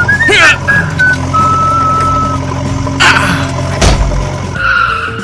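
Low steady machine hum from a small vehicle engine, with high held whistle-like tones over it and three sudden whooshing bursts.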